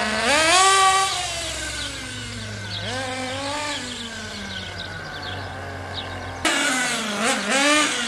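HPI Trophy 3.5 nitro buggy's small two-stroke glow engine revving as the buggy laps an asphalt track, its pitch rising and falling with the throttle. About six and a half seconds in it gets abruptly louder, with quick blips of the throttle.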